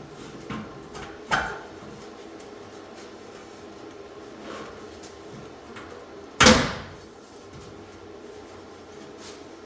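Steel plate and frame pieces knocking and clanking as they are laid in place: a few light knocks, then one loud metal clank with a short ring about two-thirds of the way through.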